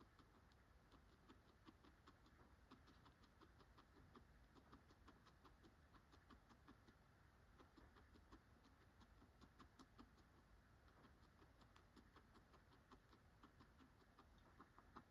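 Guinea pig chewing dry pellets: faint, rapid crunching clicks, several a second.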